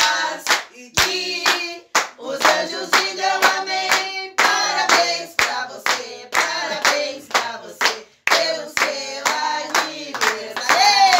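A group of party guests clapping in time, about two claps a second, while singing a birthday song together.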